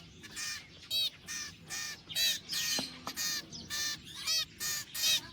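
Two young hand-reared birds giving short, rapidly repeated begging calls, about two to three a second, crying for food.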